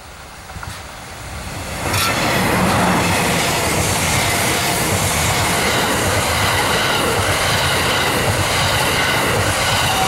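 E001 series 'TRAIN SUITE Shiki-shima' train passing close by: the sound swells, then jumps sharply about two seconds in as the train reaches the camera. Its wheels then rumble steadily on the rails, with a steady high whine over the rumble.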